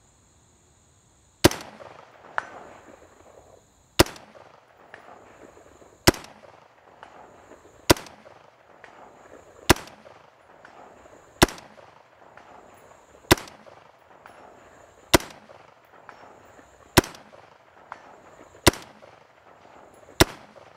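Slow aimed semi-automatic fire from an M16-family 5.56 mm carbine: about a dozen single shots, roughly one every two seconds, each sharp crack trailing off in a short echo. Insects trill faintly between the shots.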